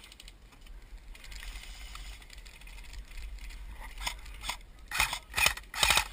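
Sharp mechanical clicks and rattles from an airsoft rifle and its kit, in quick clusters during the last two seconds, over a faint low rumble.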